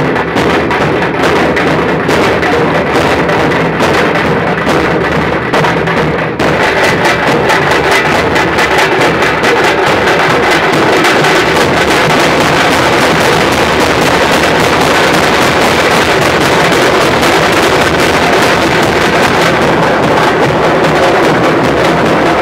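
Loud rhythmic drumming from a marching drum troupe. The sound thickens about six seconds in.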